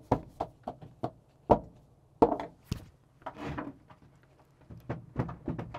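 Irregular knocks and clanks of hand tools and metal parts being handled while a truck's pedal assembly is unbolted.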